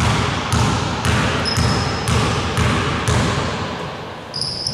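A basketball bounced on a hardwood gym floor by a player at the free-throw line, about two bounces a second, ringing in the hall. The bouncing stops about three seconds in, as he settles to shoot.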